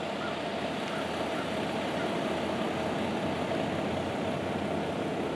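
Heavy truck tractor's diesel engine idling steadily, a constant rumble with a hum in it.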